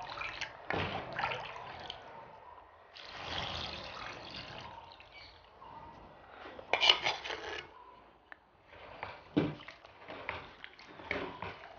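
Coconut milk being poured into a clay pot of garlic cloves, herbs and spices, a liquid splashing and trickling, then stirred with a ladle near the end, with short scrapes and knocks against the pot.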